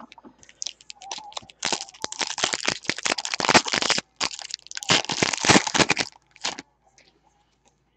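Shiny plastic wrapper of a Donruss basketball card pack crinkling and crackling as it is torn open by hand, in two loud stretches with a brief break about four seconds in.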